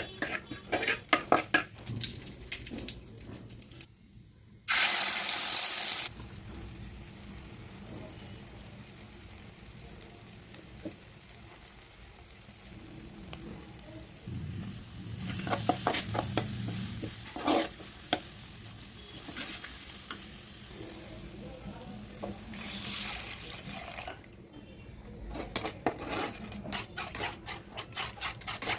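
Cooking in a pan: a spoon stirring and scraping with quick clicks against the pan, over a low, steady sizzle. About five seconds in there is a loud hiss lasting about a second, and a shorter one comes later.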